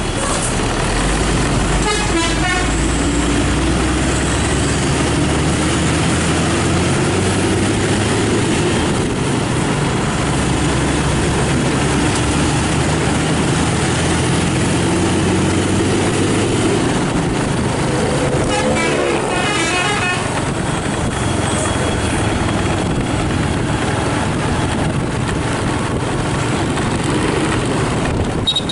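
Intercity bus engine running steadily, with a multi-tone telolet horn sounding in short warbling bursts about two seconds in and again about two-thirds of the way through.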